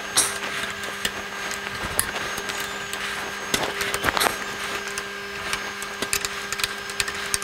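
Hex key working the clamp bolts of a CNC router's spindle mount, giving scattered light metallic clicks and scrapes over a steady machine hum.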